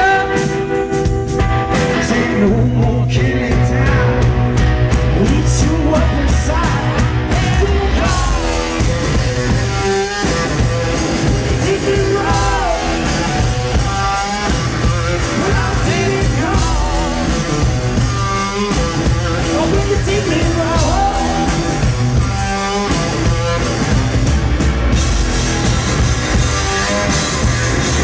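Live blues-rock from a guitar-and-drums duo: an electric guitar instrumental break with bending lead notes over a steady drum kit. The cymbals wash in more brightly near the end.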